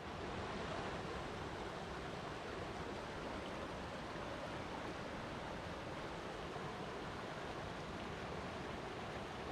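Flowing water: a steady, even rush with no change over the whole stretch.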